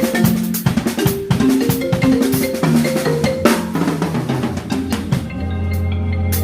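Trap beat built on an iPhone ringtone melody: a tune of short pitched notes over kick and snare drum hits. A long, deep bass note comes in about five seconds in.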